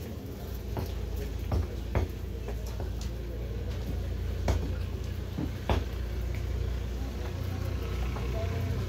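Steady low rumble of street traffic, with a few sharp taps and foil crinkles as marinated fish pieces are pressed and arranged on aluminium foil.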